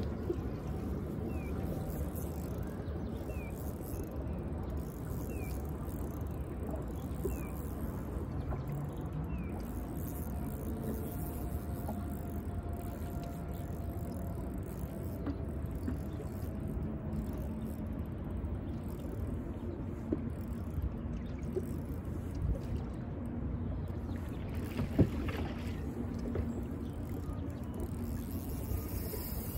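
Steady wind rumble on the microphone with water noise, under a faint motor hum that drifts slowly in pitch through the middle. One sharp knock about 25 seconds in.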